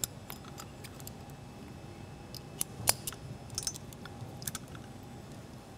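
Small metallic clicks and taps as a metal pin is worked into a spring balancer's swivel connection, with one sharper click about three seconds in.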